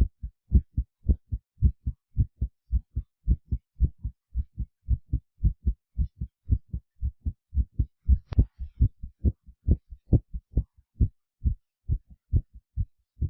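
Heartbeat sound effect: fast, regular lub-dub pairs of low thumps, about two beats a second, with a brief click about eight seconds in where the next heartbeat recording begins.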